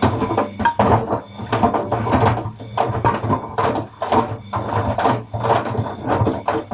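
Atlant 50U101 washing machine running a wash, its load of paint rollers and brushes knocking and clattering irregularly, two or three times a second, against the turning drum over a steady motor hum.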